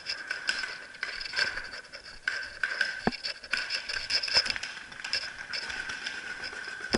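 Footsteps and gear rattle of a paintball player walking down wooden steps and across grass, with a few sharp knocks. A steady high-pitched tone runs underneath.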